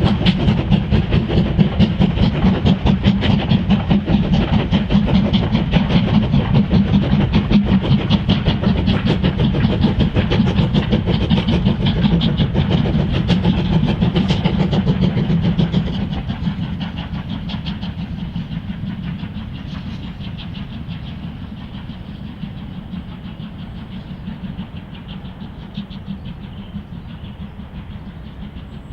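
Steam train running past, its locomotive exhaust beating in a fast, even rhythm. About halfway through the sound drops away and fades steadily as the train recedes.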